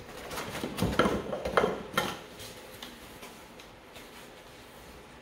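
Hard plastic parts clattering and knocking together as they are pulled out of a foam packing insert: a quick run of knocks in the first two seconds, then only faint handling.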